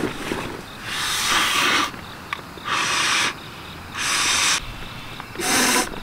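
Mouth-inflating an air sleeping pad: four strong breaths blown into its valve, each a short hiss of air, about one every second and a half.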